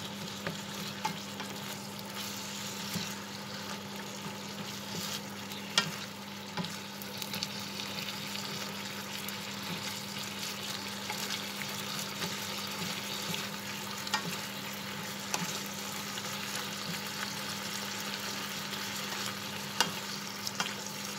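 Minced pork frying in curry paste and oil in a frying pan, sizzling steadily as two wooden spatulas stir and break it up, with a few sharp knocks of the spatulas against the pan. A steady low hum runs underneath.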